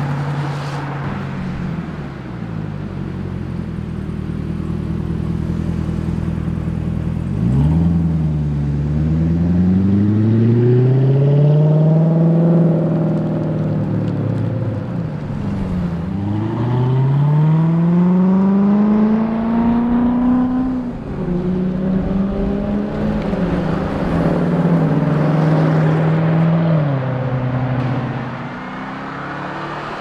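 Lamborghini Urus prototype's twin-turbo V8 engine accelerating hard twice, about 8 and 16 seconds in. Each time the pitch climbs, then drops sharply. After that it runs at a steady pitch and eases off near the end.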